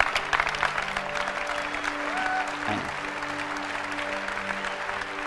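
Audience applause, densest at the start, over sustained background music chords.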